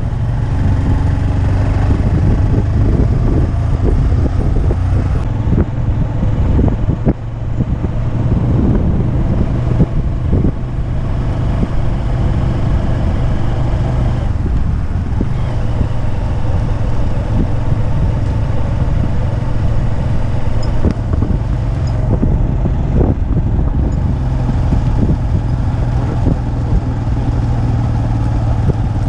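A motor vehicle's engine runs steadily close by over road and wind noise, with a few brief knocks.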